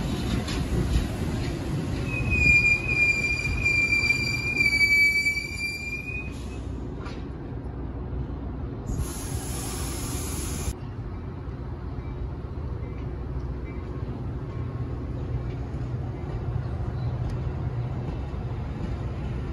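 Train's low rumble on the rails, with the wheels squealing in one high, steady tone for about four seconds near the start. About nine seconds in comes a sharp hiss of nearly two seconds that starts and stops suddenly, then the rumble carries on steadily.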